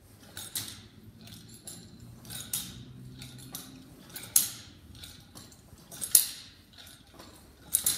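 Chain-linked nunchaku swung through repeated overhead forward strikes, its metal chain clinking sharply each time it snaps through the strike and catch: about six clinks, roughly one every one and a half to two seconds, the loudest about four and six seconds in.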